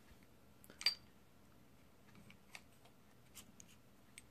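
Steel slide of a Rock Island M1911 .45 pistol being slid back onto the frame's rails: one sharp metallic click a little under a second in, then a few faint ticks.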